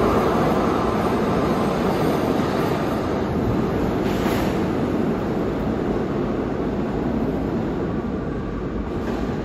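New York City Subway B train of R68-series cars pulling out of the station and running off into the tunnel, a steady rumble of wheels on rail that slowly fades.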